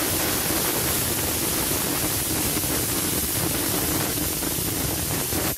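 Stovetop pressure cooker whistling: steam escapes from under the lifted weight valve in a loud, steady hiss with a low rattling tone beneath it. This is the whistle that shows the cooker is at full pressure, counted to time the chicken's cooking. The sound cuts off suddenly at the end.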